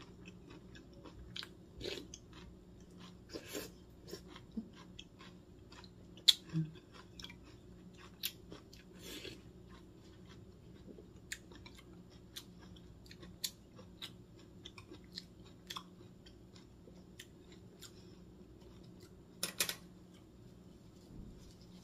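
Close-miked chewing and crunching of crisp cucumber and seaweed from a cold cucumber-seaweed soup. Short, sharp crunches come at irregular intervals, with wet chewing between them.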